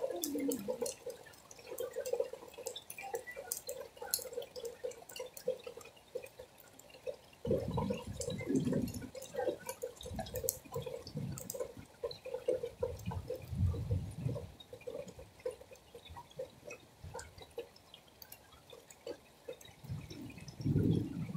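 Rain dripping steadily, with drops tapping in a quick, uneven patter on a hard surface close by. A few low rumbles swell and fade partway through and again near the end.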